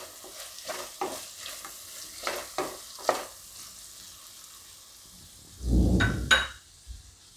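A spatula stirring and scraping diced capsicum and onion frying in oil in a pan, with a light sizzle; the strokes come several times in the first three seconds, then ease off. A dull bump with a couple of clicks about six seconds in is the loudest sound.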